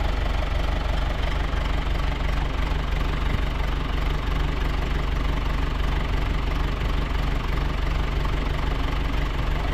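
Tractor engine running steadily at a constant pace, with an even low throb.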